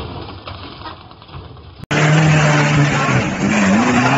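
Quiet, fading noise after a crash, then a sudden cut about two seconds in to an off-road 4x4's engine running hard at high revs as it climbs a dirt bank.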